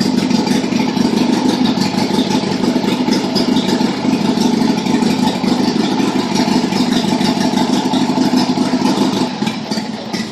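Harley-Davidson 883 Sportster's air-cooled Evolution V-twin idling steadily, warming up on fresh oil after an oil change. The sound drops somewhat in level near the end.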